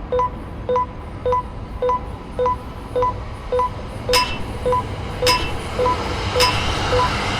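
Japanese level-crossing alarm sounding its 'kan-kan' bell tone in a steady rhythm, a little under two strikes a second. From about four seconds in, a brighter, sharper ringing strike joins about once a second.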